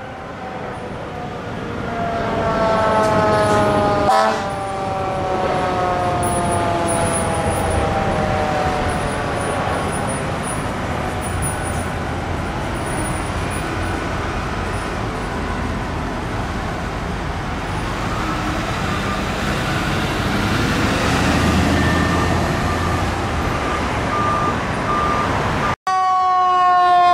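Fire apparatus responding, sounding a loud horn-like warning tone about two seconds in that slowly falls in pitch and fades over the next ten seconds into traffic noise. Near the end a different emergency vehicle's electronic siren wails, its pitch stepping up and down.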